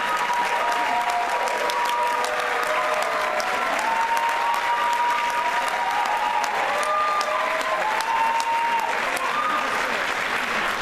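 Theatre audience applauding steadily, with long overlapping whoops from the crowd rising and falling over the clapping.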